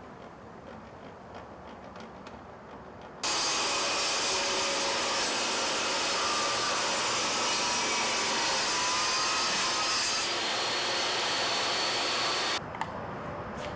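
A woodworking power tool running loudly for about nine seconds, starting and stopping abruptly, after a few faint clicks of handling.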